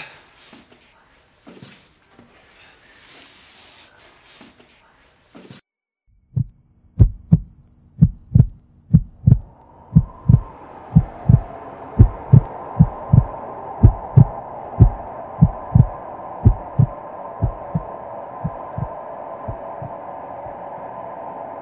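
Film soundtrack heartbeat effect: deep paired thumps about once a second, growing fainter near the end, over a steady drone. Before it, for about the first five seconds, a wash of noise with a high steady whine that stops abruptly.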